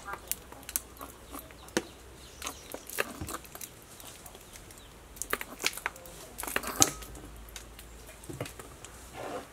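Plastic squeeze bottles of sauce squirting and sputtering into a small glass bowl, with scattered sharp clicks and taps that cluster about five to seven seconds in. Near the end the bottles are set down on the table.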